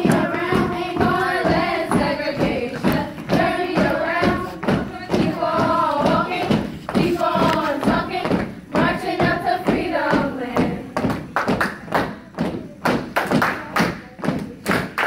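Sorority step performance: a group chanting and singing in unison over rhythmic stomps and claps on a hard floor. The stomps and claps come to the fore in the last few seconds.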